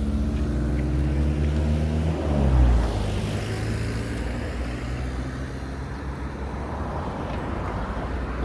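Highway traffic at the roadside. A vehicle passes about two seconds in, its engine note dropping in pitch as it goes by, followed by steady road and tyre noise.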